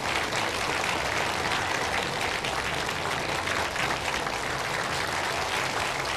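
Studio applause: a crowd of people clapping steadily, tailing off just at the end.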